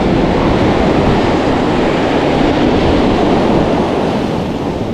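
Ocean surf washing up onto a sandy beach: a steady rushing wash, with wind rumbling on the microphone.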